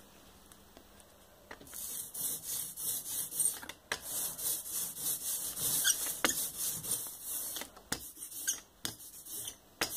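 Hand ink roller (brayer) rolling printing ink over a collagraph plate of mount board, going back and forth in strokes with a hissing sound that starts about two seconds in, broken by short pauses.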